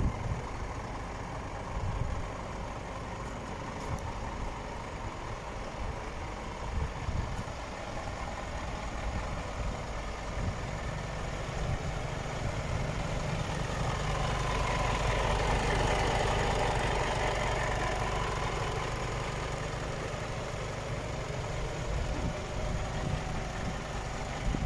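Scania P450 truck's 13-litre inline-six diesel idling steadily, a low even rumble that swells louder for a few seconds about midway before settling back.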